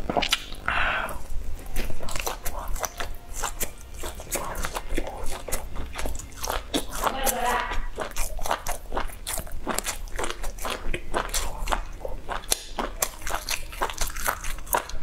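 Close-miked eating of a spiced grilled meat skewer: biting and chewing, heard as a dense run of short mouth clicks.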